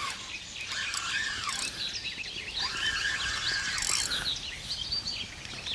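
Birds singing with many short chirps and whistles, over the clicking and whirring of a spinning reel being wound in while a heavy fish is played on a feeder rod.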